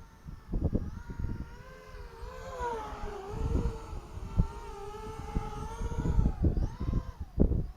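Eachine Falcon 250 quadcopter's motors and propellers whining in flight, the pitch rising and falling as the throttle changes, with wind buffeting the microphone in repeated low bumps.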